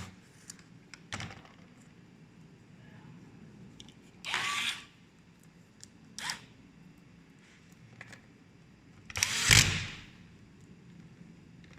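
A small electric motor running in three short bursts, the last the longest and loudest. Light clicks and handling noises come between the bursts.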